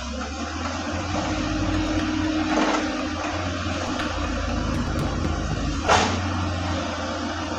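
Large excavator's diesel engine running steadily under work, with a brief hydraulic whine early on and a single sharp knock about six seconds in.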